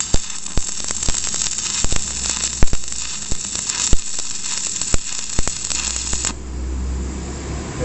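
Stick (arc) welding with a coated electrode rod on steel: a steady crackling sizzle from the arc with frequent sharp pops of spatter, cutting off suddenly about six seconds in as the arc is broken.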